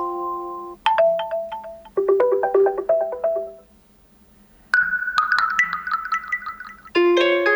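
Huawei P50 Pro notification tones played one after another through the phone's speaker: about five short melodic chimes and mallet-like note runs, each a second or two long, with a pause of about a second midway.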